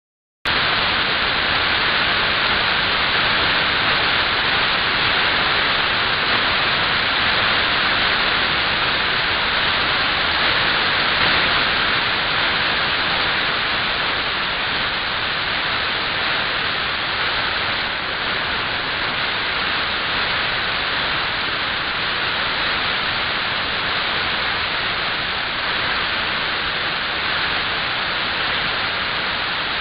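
Steady static hiss from a software-defined radio receiver tuned to an idle aircraft-band channel, with no transmission coming through. It starts suddenly about half a second in.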